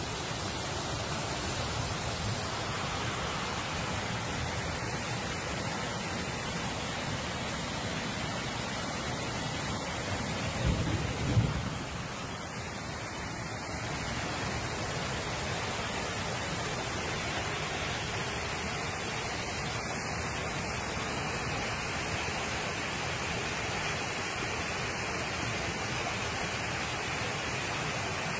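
Floodwater rushing down a street as a steady, even noise. About eleven seconds in there is a short, louder low thump.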